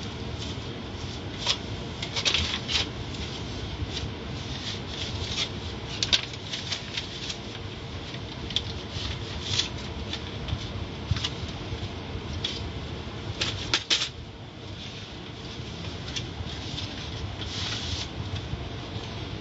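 Steady low rumble inside a car's cabin while the vehicle sits idling, with a faint steady hum. Scattered light clicks and rustles come at irregular times, the loudest a quick cluster about 14 seconds in.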